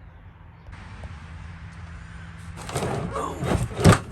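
Tools and gear being rummaged through and shifted around in a truck bed: rustling and knocks that build up in the last second and a half, with one loud thump near the end.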